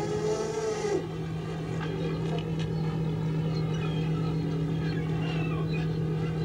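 A fishing boat's engine running steadily at sea, with gulls giving short calls over it from a couple of seconds in. A higher whine drops out about a second in.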